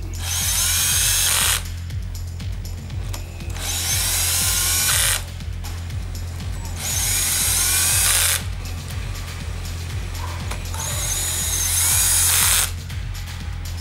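Electric drill-driver spinning in four bursts of about a second and a half each, its pitch rising as it speeds up, driving in the engine's clutch cover bolts. Background music with a steady low beat runs underneath.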